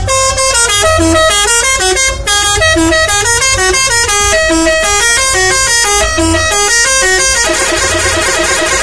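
Telolet multi-tone air horn on a Saztro Holiday bus playing a melody of short stepped notes, about three a second, over low pulses. Near the end the tune gives way to a denser, buzzier run of tones.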